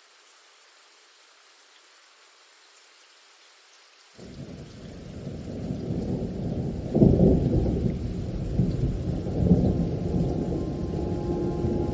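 Faint steady rain hiss, then about four seconds in a deep thunder rumble sets in suddenly and rolls on, loudest about three seconds later with another swell a little after.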